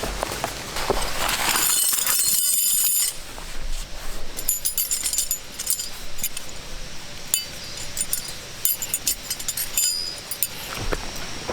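Close handling noises: a loud rustle about two seconds in, then a run of light clicks and clinks.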